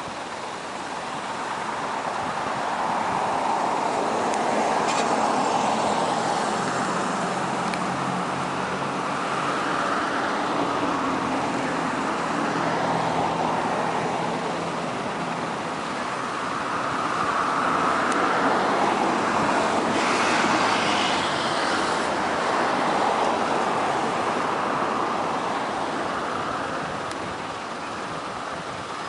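ATR 72 turboprop airliner in flight, its engines and propellers making a steady drone that swells and eases twice, with a low propeller hum in the middle.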